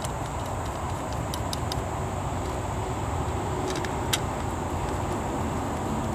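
Steady low rumble, with a few light clicks and taps as the air pump's plastic diaphragm housing and parts are handled and pressed into place, the sharpest click about four seconds in.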